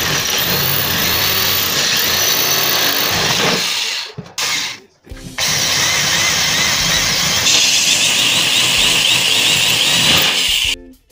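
Electric drill running in long stretches, stopping briefly about four seconds in, then starting again. Its sound turns brighter and higher about two-thirds of the way through before it cuts off near the end.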